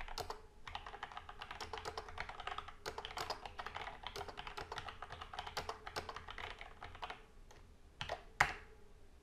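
Typing on a computer keyboard: a quick, steady run of keystrokes, then a short pause and two louder key presses near the end.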